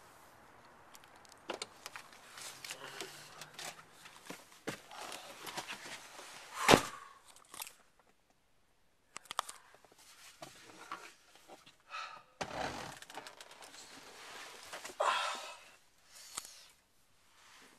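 Handling noise inside a car: scattered knocks, clicks and rustles as the camera and people shift about, with one loud sharp thump about seven seconds in and a deeper thud a few seconds later.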